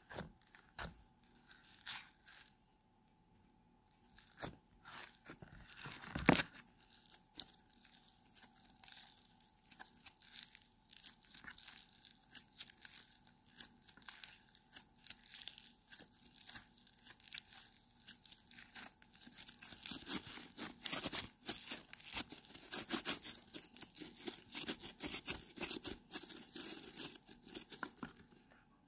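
Fluffy pink 'snow fizz' slime being squeezed and kneaded by hand, giving soft crackling, fizzing crunches as its snowy texture breaks and tears. One loud crunch about six seconds in; the crackling grows denser and louder in the last third as the slime is pressed into a ball.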